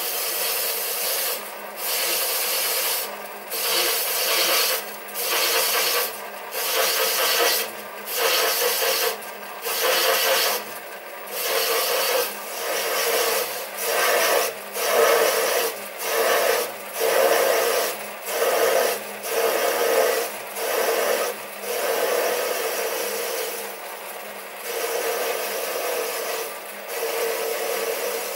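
Mini lathe turning a cast iron cylinder cover, the tool scraping as it cuts the boss. The cut comes in bursts about one a second for most of the time, then runs more steadily near the end.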